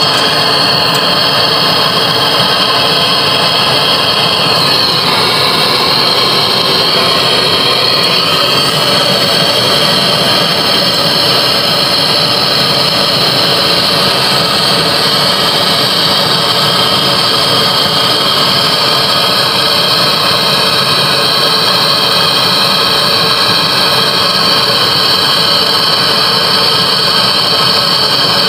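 Handheld gas brazing torch burning with a steady, loud hiss as its flame heats copper refrigerant pipe joints on an air-conditioner compressor; it cuts off suddenly at the end.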